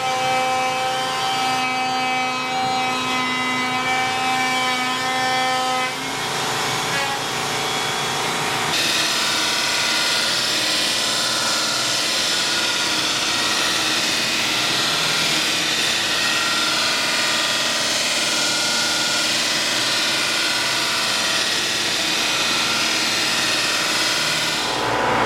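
A router cutting roundover edges runs with a steady whine for about the first six seconds. At about nine seconds a buffing wheel takes over with a denser, noisier whir that runs on steadily.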